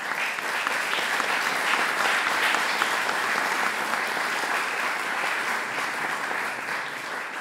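Audience applauding, a dense patter of clapping that starts suddenly and slowly tapers off.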